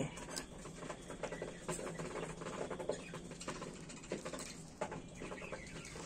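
Faint high chirps and squeaks from budgerigars, with scattered small clicks.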